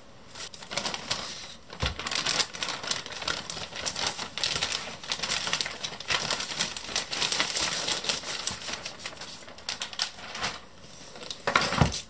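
Plastic shopping bag rustling and crinkling in rapid dense clicks as a backpack is pulled out of it. A thump comes about two seconds in, and a louder one near the end.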